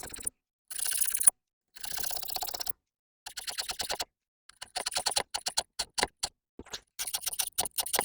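A file rasping across the cutter teeth of a worn chainsaw chain as it is hand-sharpened. It comes in separate strokes of about half a second to a second with short pauses, and the strokes turn shorter and choppier in the second half.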